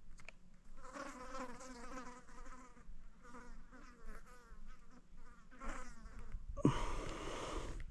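A flying insect buzzing, its hum wavering up and down in pitch as it moves about. About six and a half seconds in, a burst of broad hissing noise takes over.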